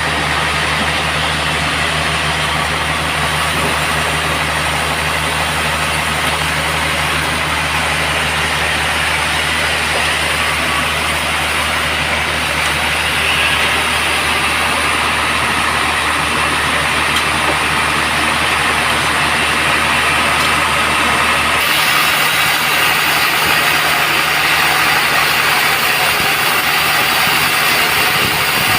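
Band sawmill running: a steady machine hum under broad, continuous saw noise. About three-quarters of the way through, the low hum drops away and the higher noise gets a little louder.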